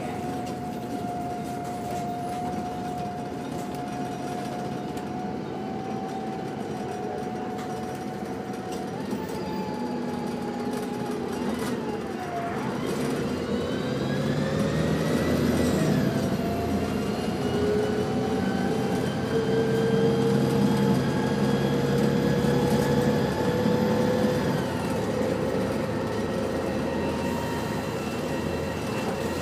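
A Volvo B7TL double-decker bus heard from inside the lower saloon, its engine running with the whine of its Voith automatic gearbox. Around twelve seconds in the whine dips, then it rises in pitch and grows louder as the bus accelerates, easing off near the end.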